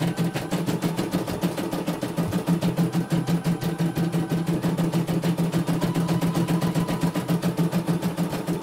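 CNY E900 computerized embroidery machine running a test stitch-out: a fast, even ticking of needle strokes over a steady motor hum.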